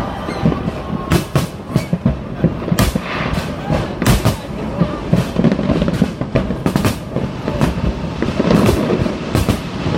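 Fireworks bursting: a steady run of sharp bangs, about one or two a second, over a dense rumble of lower booms.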